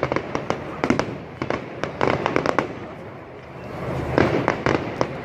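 Fireworks going off: rapid clusters of sharp cracks and pops, easing into a short lull about three seconds in, then crackling again.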